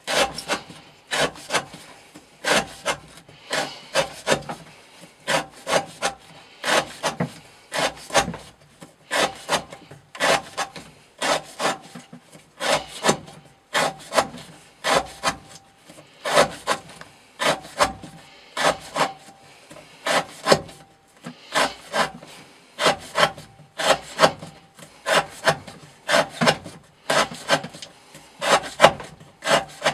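Steel knife blade slicing through rope over and over, each cut ending on a wooden board, about one cut a second in a steady rhythm, as in a rope-cutting edge-retention test.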